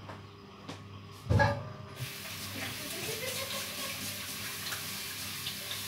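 A brief thump about a second in, then, from about two seconds in, food starts sizzling in a hot pan with a steady hiss.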